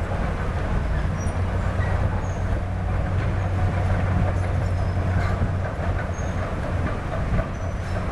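Diesel engine of heavy earthmoving machinery, an excavator or dump truck, running with a steady low rumble.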